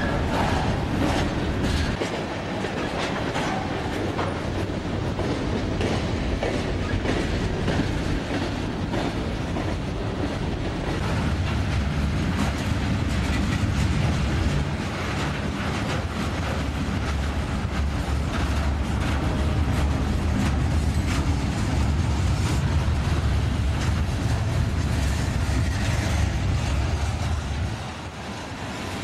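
Freight cars (hoppers and gondolas) rolling past at close range: wheels clicking over rail joints over a steady heavy rumble, easing off a little near the end.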